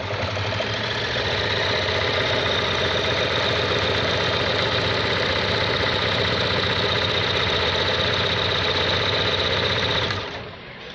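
Electric sewing machine running steadily at speed, its needle mechanism stitching a decorative pattern stitch that it forms by itself. It stops about ten seconds in.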